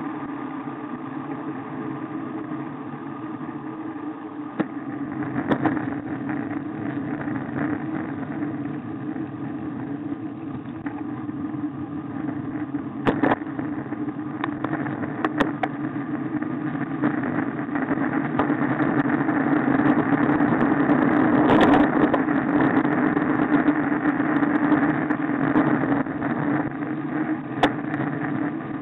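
Steady rumbling riding noise on a bicycle-mounted camera, wind and tyres on rough tarmac, with a few sharp knocks as it jolts over the road surface. The noise grows louder for a while past the middle.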